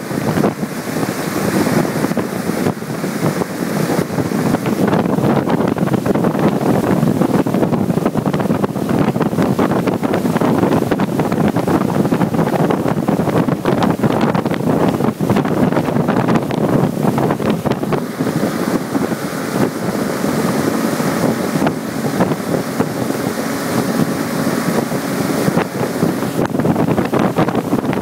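Motorboat running steadily at towing speed behind a Yamaha outboard, with the rush of its wake and heavy wind buffeting the microphone.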